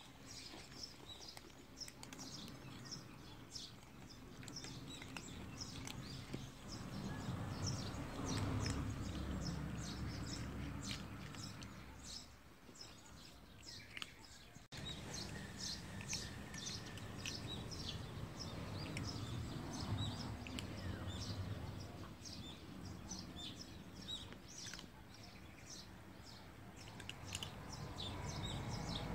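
Small birds chirping in many quick, short, high calls, over a low rumbling noise that swells and fades.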